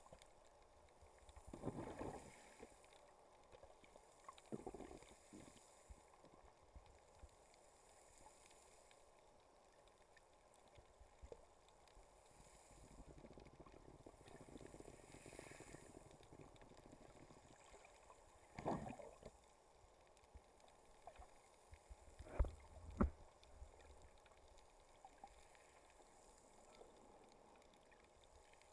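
Faint, muffled underwater water movement, with a few brief swishes and two sharp knocks half a second apart about three quarters of the way through.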